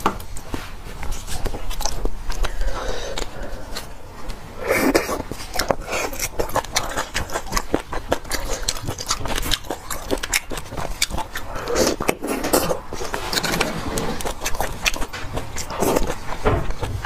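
Close-miked eating of braised beef bone marrow: wet chewing and lip-smacking with quick clicks throughout, and three longer slurps about 5, 12 and 16 seconds in.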